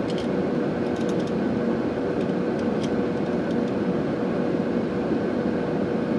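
Steady rushing background noise with a constant low hum, even and unchanging, with a few faint ticks.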